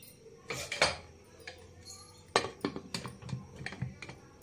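Aluminium pressure cooker lid being set on the pot and closed: a run of small metal clicks and knocks, the loudest about a second in and again around two and a half seconds in.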